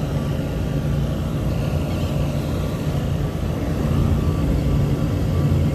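Steady low hum of running machinery with a constant low drone.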